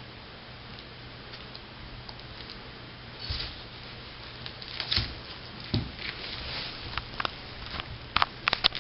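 Scattered sharp clicks and taps from an iguana biting at a piece of banana on a wooden floor. They start about three seconds in and come more often, loudest near the end.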